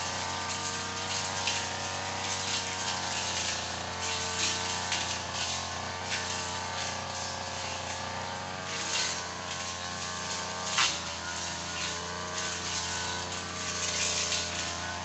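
Tanika 438ER engine running steadily under work, its pitch wavering slightly, with uneven noisy surges over it and one sharp knock about two-thirds of the way through.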